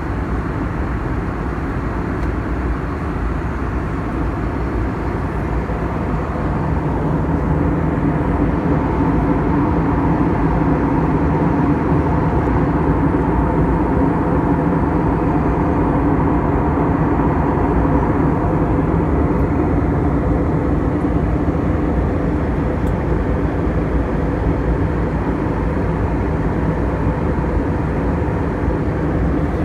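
Steady cabin noise of an airliner in cruise: jet engine and airflow noise with a faint steady hum, growing a little louder about eight seconds in.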